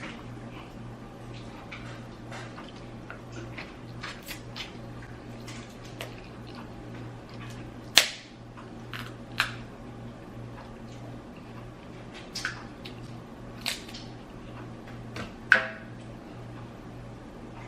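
Close-up eating sounds of seafood: chewing and wet mouth smacks, with a few sharp snaps or cracks, the loudest about eight seconds in and again near the end, over a low steady hum.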